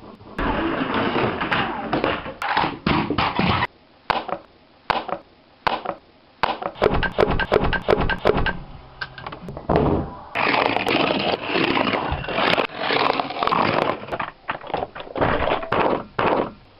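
A string of different clattering, knocking and scraping noises, one after another, with a few short gaps between them.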